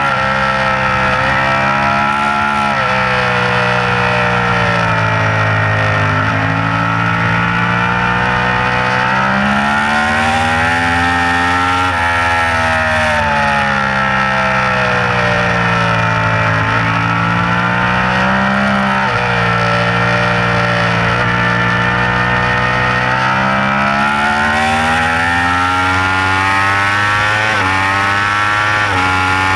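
A 2015 Yamaha YZF-R1's crossplane inline-four engine at race pace, heard from the bike itself. The engine note climbs under acceleration and drops back at gear changes and braking, several times over, above a steady rush of wind.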